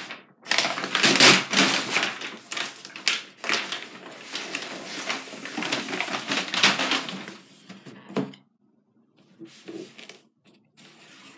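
Crumpled brown kraft packing paper crinkling and rustling, with cardboard scraping, as a cardboard shoebox is pulled out of it and handled. The noise stops about eight seconds in, and a few soft knocks follow.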